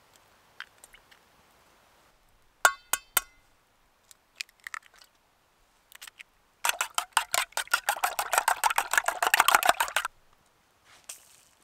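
Eggs knocked sharply on the rim of a metal cooking pot, three quick knocks with a brief metallic ring, then a utensil beating the eggs fast against the inside of the pot in a rapid clatter of about ten strokes a second for three seconds or so.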